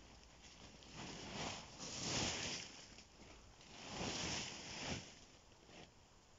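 Dry leaves and twigs rustling as a person moves among leafy branches and leaf litter, in several separate swishes.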